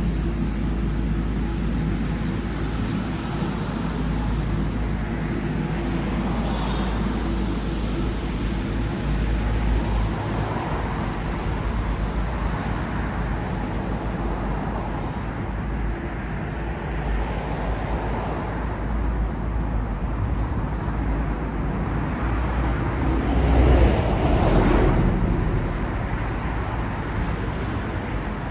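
City street traffic: a steady rumble of passing cars, with one vehicle passing closer and louder near the end.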